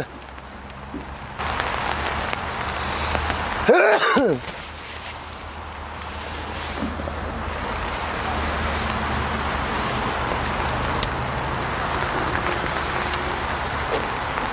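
A man's single loud, short vocal outburst about four seconds in, its pitch rising and then falling, over a steady hiss.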